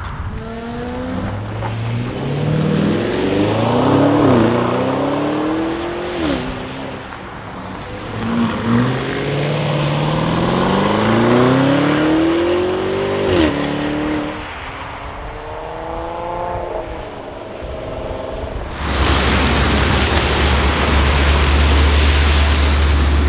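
Twin-turbo V8 performance SUVs, a Lamborghini Urus among them, accelerating hard: the engine note climbs and drops back at each upshift, several times over. About nineteen seconds in it changes to a steady low engine rumble with road noise as a BMW M5 drives slowly past.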